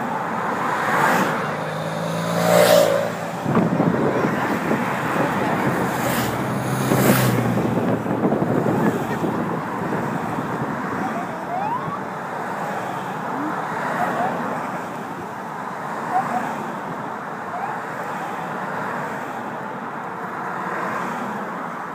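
Race-caravan team cars and motorcycles passing one after another, with steady road and tyre noise. Two louder passes, carrying a pitched engine or horn tone, come in the first eight seconds, with weaker passes after.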